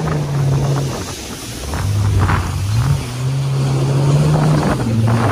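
Jet ski engine running at speed under a hiss of water spray. Its pitch dips about a second in as the throttle eases, then climbs back and holds steady from about three seconds in.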